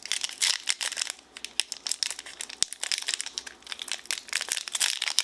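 Foil wrapper of a Pokémon trading-card booster pack crinkling and crackling as it is handled and opened, with many small irregular crackles.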